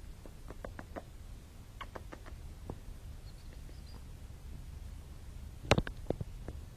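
Scattered soft clicks and taps over a low rumble, with a louder cluster of clicks close together about five and a half seconds in.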